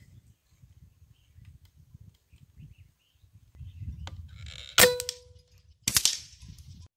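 PCP air rifle firing a shot: a sharp crack with a short metallic ring, followed about a second later by a second sharp noise.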